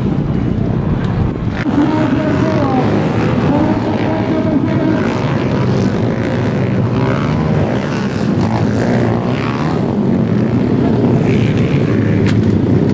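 Motocross dirt bike engines running, a loud steady drone.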